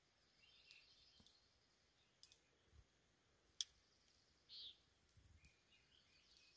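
Near silence: calm lakeshore ambience with a few faint, sharp clicks and one short, faint high chirp about four and a half seconds in.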